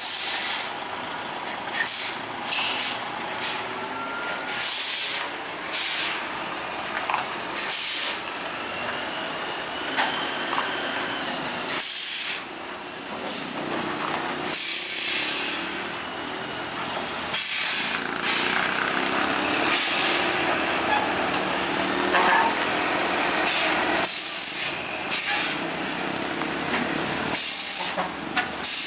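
DAF heavy trucks running in a convoy, with many short, loud air-brake hisses coming again and again over the steady engine noise.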